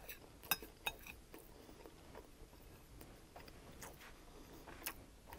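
Faint chewing of fried rice, with a few sharp clicks in the first second and again near the end as a metal spoon scoops in a glass bowl.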